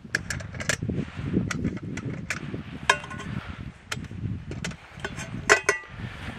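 Metal camping cookware clinking and rattling as it is handled on the stove: a dozen or so sharp clinks scattered through, several ringing briefly, over a low steady rumble.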